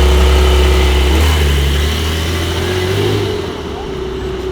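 A motor vehicle's engine running loud and close with a steady low drone, changing pitch about a second in and fading off after about three seconds as it moves away.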